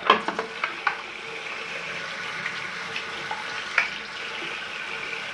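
Water running steadily from a tap over the plastic detergent drawer as it is rinsed, with a few sharp plastic clicks and knocks, most of them in the first second and one near the end.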